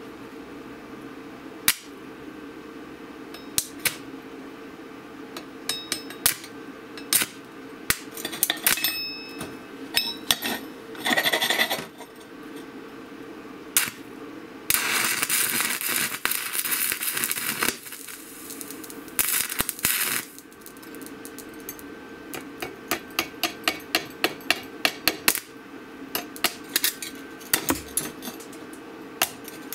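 A 3.2 mm 7018 stick-welding electrode is scratched and tapped against steel to strike an arc, making repeated sharp clicks. The arc catches a few times and crackles for a second or up to about three seconds, then goes out: the rod is hard to start.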